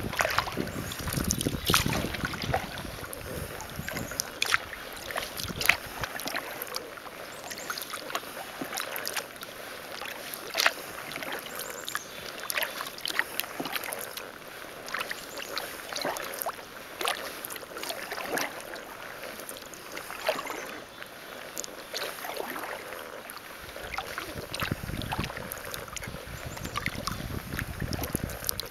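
Kayak paddle dipping and pulling through calm water, with drips and small splashes off the blades as many quick, irregular ticks. Wind rumbles on the microphone in the first few seconds and again near the end.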